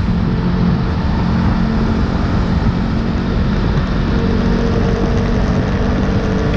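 Honda CBR500R's parallel-twin engine running steadily at road speed, with wind and road noise rushing past.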